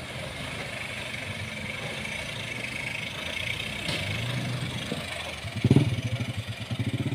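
Off-road 4x4 vehicle's engine revving as it works along a muddy track. It climbs in pitch about four seconds in, then comes a loud thump, followed by a rapid throbbing exhaust beat as the engine pulls hard.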